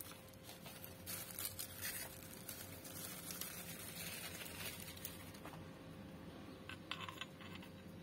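Plastic bubble wrap rustling and crinkling as it is pulled off wrapped teapot pieces by hand, with a few light clicks near the end.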